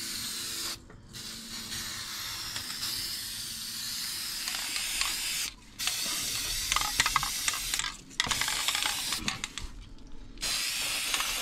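Aerosol can of self-etching primer spraying in several long hissing bursts with short breaks between them.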